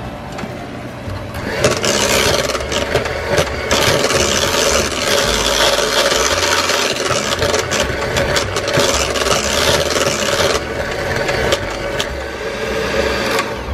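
Electric hand mixer running steadily, its beaters whipping mashed potatoes in a stainless steel pot and scraping and rattling against the metal sides. It gets louder about a second and a half in.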